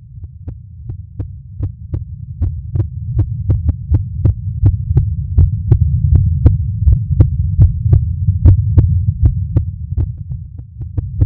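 Rapid heartbeat pulses, about two and a half a second, over a low rumbling hum. It fades in over the first few seconds and dips briefly near the end.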